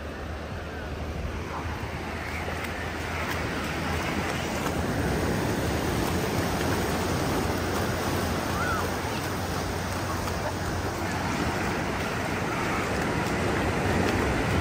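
Ocean surf washing up a sandy beach in a steady wash, with low wind rumble on the microphone.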